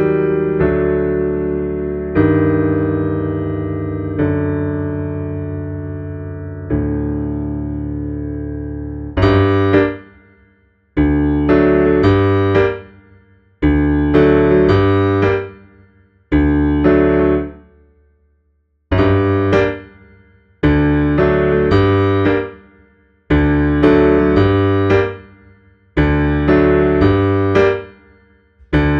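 Solo piano or electric piano music: long held chords at first, then from about nine seconds in, short chords struck one after another with brief gaps between them.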